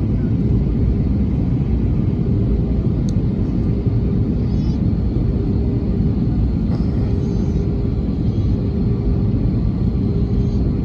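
Airliner engines running steadily during takeoff: a loud, even rumble with a faint steady hum through it.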